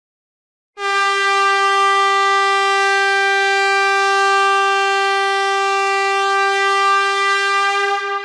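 Air horn sounding one long, steady blast at a single pitch, starting just under a second in and held evenly, beginning to die away right at the end.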